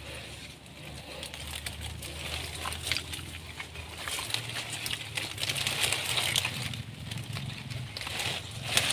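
Dry palm fronds rustling and crackling as they are handled over a crab burrow, with many small clicks and snaps, somewhat louder about halfway through.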